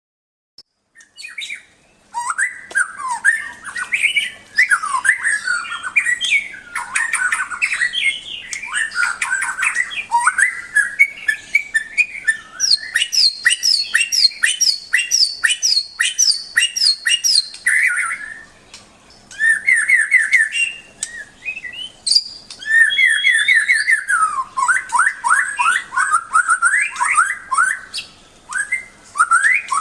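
A murai, a Copsychus songbird, singing a loud, long and varied song. It mixes fast trills and rattles, runs of rapidly repeated notes, and high whistled notes, with a couple of brief pauses.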